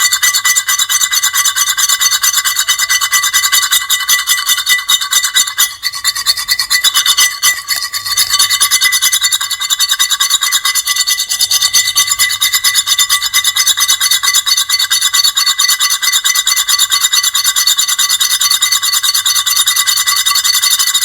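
Continuous high-pitched grating scrape with steady squealing tones over a rough, rasping texture, the kind of nails-on-chalkboard or metal-scraping noise made to be annoying. It is loud throughout, with brief dips about six and eight seconds in.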